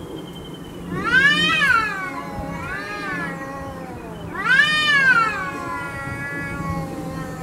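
Cat yowling in a standoff with another cat: two loud, drawn-out yowls that rise and then fall, with a weaker one between, the second trailing off slowly. A low, steady growl runs underneath. These are threat calls between two cats squaring up before a fight.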